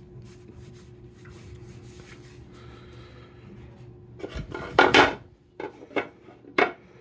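Faint rubbing of a rag wiping down a steel lathe spindle to clear it of grit. About four seconds in there is a loud scrape as a plywood board is slid onto the cast-iron lathe bed, followed by a few short knocks of wood and metal.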